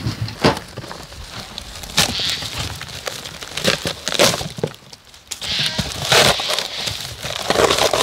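Old wooden boards of an outhouse being broken and pried apart during demolition: irregular sharp cracks, knocks and crunching splinters, with louder bursts about every couple of seconds.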